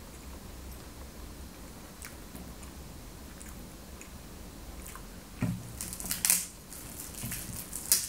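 Close-miked eating sounds of a person chewing a donut: quiet mouth clicks at first, then a few louder wet smacks in the second half, the sharpest just before the end as fingers are licked.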